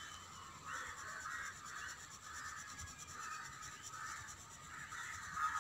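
Coloured pencil scratching on paper, shading back and forth in quick short strokes that come in spurts. Faint.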